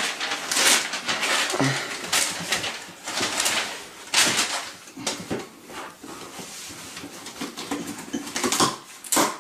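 Paper and cardboard rustling and scraping as a boxed gift is pulled out of a gift bag and handled, in irregular surges with a sharper burst near the end.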